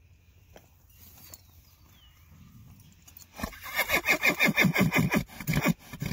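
A horse nickering: a rapid run of low, throaty pulses, about five a second, starting about three and a half seconds in and lasting nearly three seconds.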